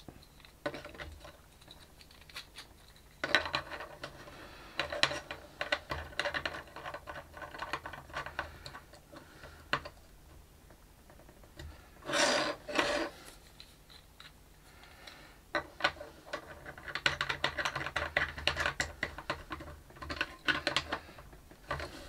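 Small clicks and taps of 3D-printed plastic parts being handled and fitted together against a hard countertop, coming in irregular clusters, with one louder, longer noisy sound about twelve seconds in.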